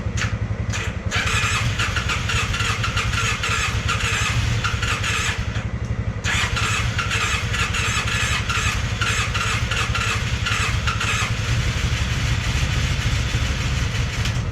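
Polaris Sportsman 600 ATV engine turning over steadily on its electric starter and trying to catch, with two long spells of a harsher, rapid rattle. It cranks but will not fire up properly because it has almost no compression.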